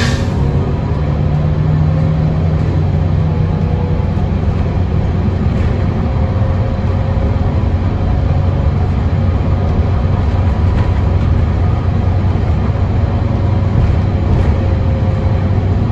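Interior of a 2022 Gillig Low Floor 40-foot CNG transit bus driving along: a steady low engine drone from its Cummins L9N natural-gas engine with faint whine and road noise. A brief sharp noise sounds right at the start.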